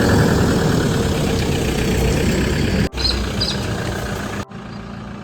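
A motor engine running steadily, heard in three short clips spliced together with sudden cuts; the last clip is quieter, with a steady hum.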